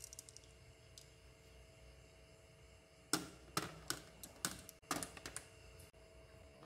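Marbles clicking as they are set one by one onto a channel track and knock against each other in a row: a light rattle of marbles in the hand at the start, then about a dozen sharp clicks in quick succession from about three seconds in.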